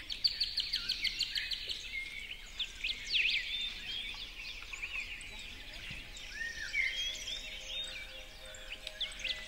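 Budgerigars chattering: a dense, continuous run of quick chirps and squeaky gliding calls, with a fast trill of clicks in the first couple of seconds.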